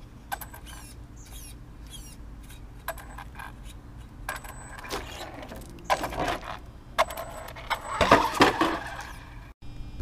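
Traxxas Stampede 4x4 VXL electric RC monster truck crawling over rocks and loose pebbles: its brushless motor whines in short spurts, its pitch sliding down once around the middle, while tyres and chassis clatter and scrape on stone, loudest about eight seconds in.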